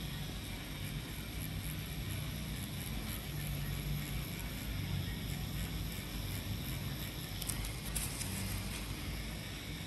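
Electric tattoo machine buzzing with a low, steady hum that strengthens and eases in stretches, with a couple of faint clicks near the end.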